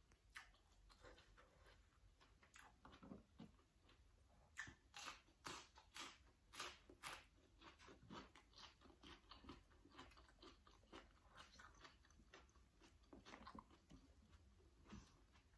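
A person chewing crunchy raw vegetables, with quiet, irregular crunches and mouth clicks. The loudest run of crunching comes a few seconds in and lasts about three seconds, then settles into softer chewing.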